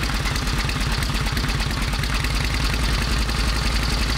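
The 1916 Traub motorcycle's hand-built 76 cubic inch side-valve twin-cam V-twin running steadily on its stand, with an even, low pulsing exhaust beat.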